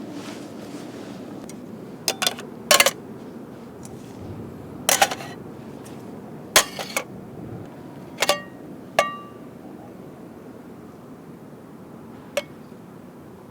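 Aluminium camp cookware clinking: about eight irregular metal-on-metal knocks, several with a short bright ring, the loudest around the middle.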